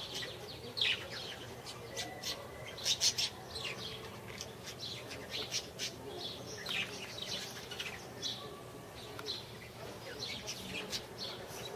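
Small birds chirping: many short, high chirps, some in quick clusters, the loudest cluster about three seconds in.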